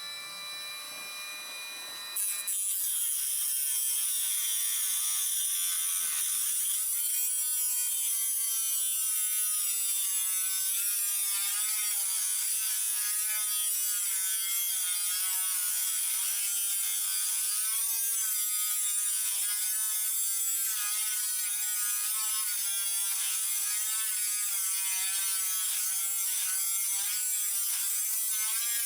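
Handheld rotary tool (Dremel-type) with a cutoff wheel, spinning up and then cutting into metal from about two seconds in. It gives a loud, high whine whose pitch wavers as the wheel bogs under load.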